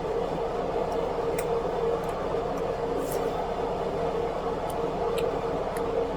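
Steady hum of a household machine with a held mid-pitched tone, and a few faint short clicks of eating over it.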